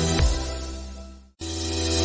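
Background music with a beat that fades out about halfway through, a brief gap of silence, then music starting again.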